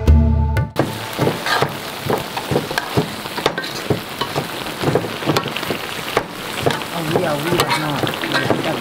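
Chili, onion, lemongrass and garlic being chopped by hand for curry paste: irregular knife knocks on a board with scraping between them.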